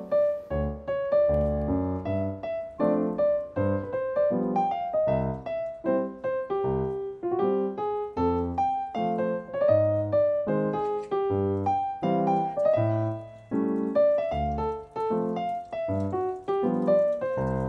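Background piano music: a melody of single struck notes over lower bass notes, each note dying away after it is played.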